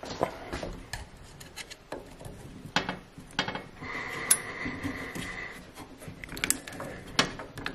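Plastic electrical plug being worked loose and pulled off a boiler's circulating pump: scattered clicks and rubbing of plastic and cable.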